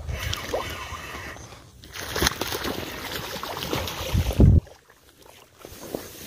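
Water sloshing and splashing, uneven, with a loud low thump about four and a half seconds in, after which the sound cuts off suddenly.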